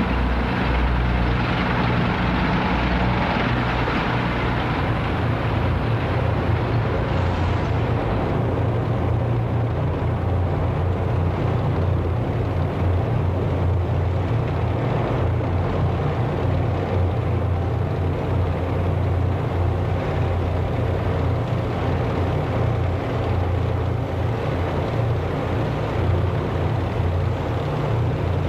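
A column of armoured military vehicles passing in procession, their engines running with a steady, heavy low rumble.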